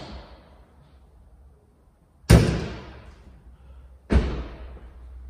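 Mercedes A-Class (W177) car door and bonnet release: a click at the start, then two loud slams about two seconds apart, each ringing briefly, as the bonnet is released from inside and the driver's door is shut.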